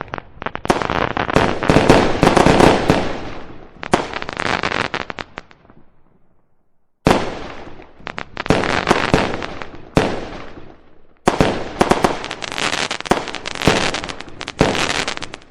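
Firecrackers going off in rapid volleys of sharp bangs, in three long runs, with a near-silent lull about six seconds in and a shorter break near eleven seconds.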